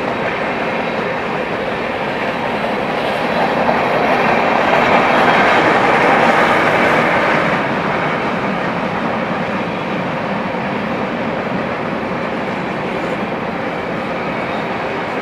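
Freight train's covered hoppers and boxcars rolling past, a steady noise of steel wheels on the rails that swells for a few seconds in the middle.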